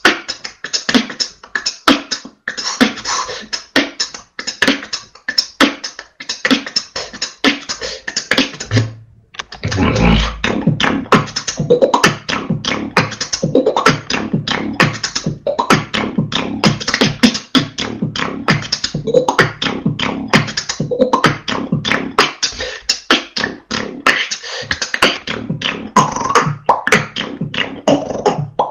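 Solo beatboxing over TeamSpeak voice chat: a fast, dense run of sharp percussive mouth sounds. It breaks off briefly about nine seconds in, then comes back with a low bass hit and carries on without pause.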